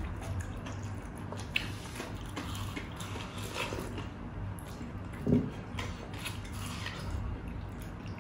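Close-miked eating sounds: wet biting and chewing of juicy watermelon, with small smacks and clicks. There is one louder thump about five seconds in.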